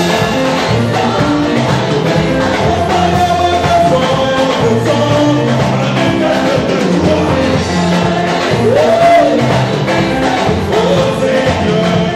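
Live church worship music: a group of singers at microphones, backed by keyboard and drums, sung melody over a steady held accompaniment.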